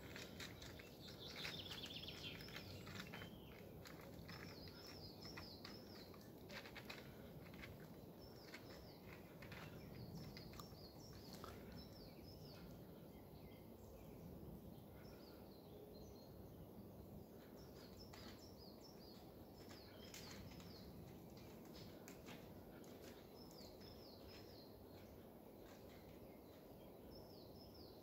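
Faint birdsong in forest quiet: a small bird repeats a short, high chirping phrase every few seconds, with a quicker falling trill near the start. Scattered faint clicks and a low hiss lie underneath.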